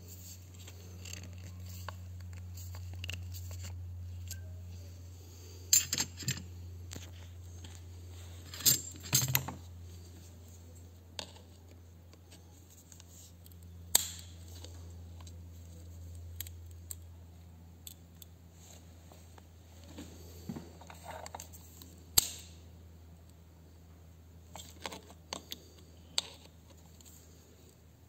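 Diagonal side cutters gripping a screw driven into a shift-detent plug of a BMW ZF five-speed gearbox, levering it out of the cast housing: scattered sharp metal clicks and scrapes, a few much louder than the rest, over a steady low hum.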